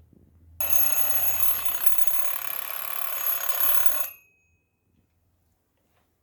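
Mechanical alarm clock's bell ringing loudly and continuously for about three and a half seconds, then stopping suddenly, with a brief ring-out.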